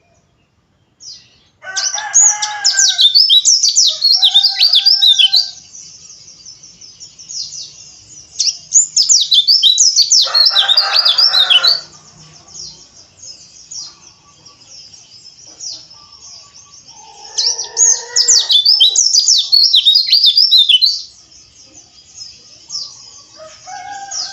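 White-eye (pleci) rapid, rough chattering song in three long loud spells of fast high twittering, with quieter high twittering carrying on between them.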